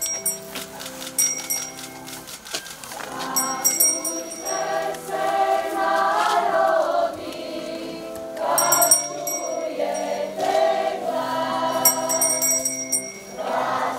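Held instrumental chords, then a choir comes in singing a Christian hymn about three seconds in.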